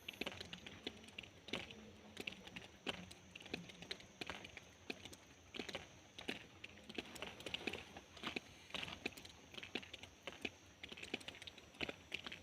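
Rain drops falling and dripping, a close, irregular run of sharp individual ticks and taps several times a second over a faint steady high tone.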